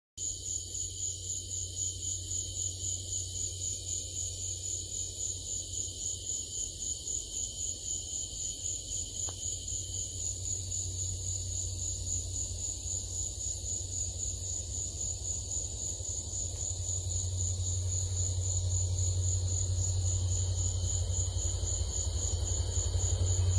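Insects chirping in a steady, evenly pulsing high-pitched trill, over a low rumble from an approaching train that grows louder toward the end.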